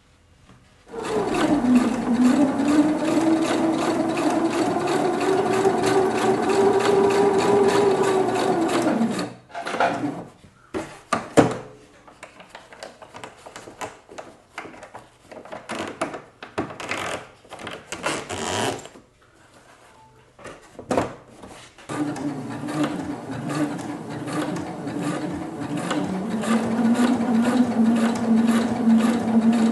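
Electric sewing machine stitching fabric in two long runs, the first from about a second in to about nine seconds, the second starting about 22 seconds in; within each run the motor hum holds steady, and it drops lower partway through the second run. Between the runs, scattered clicks and rustles.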